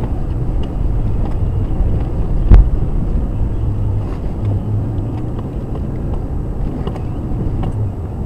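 Cabin sound of a Jeep Grand Cherokee crawling slowly over a rocky trail: the engine running low and steady, with small clicks and rattles from the body. A single loud knock comes about two and a half seconds in.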